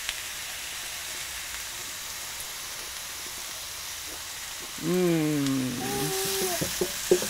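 Zucchini noodles and pesto sizzling in a frying pan, a steady hiss. About five seconds in, the cook tastes a bite and gives a long, falling "mmm", followed by a few light clicks.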